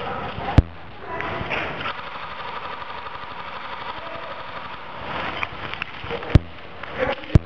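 Three sharp single shots from airsoft guns firing close by: one about half a second in and two more near the end, irregularly spaced, over a steady background hiss.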